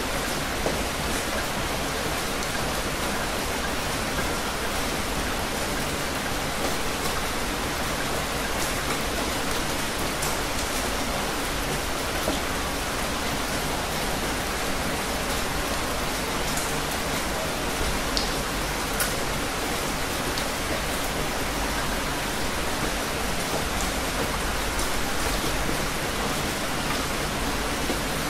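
Heavy rain pouring steadily, an even hiss with a few sharper drip ticks now and then.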